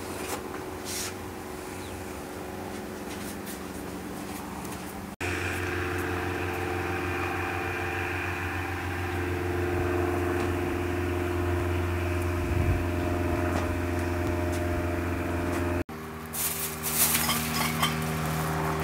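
Steady low mechanical hum with several steady tones, shifting at each cut. Near the end, a cluster of light clinks as dishes and a tray are set down on a glass tabletop.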